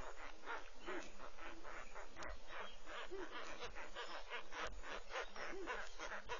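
Steady rhythmic pulsing chorus of calling animals, about four even pulses a second, with a couple of faint low knocks.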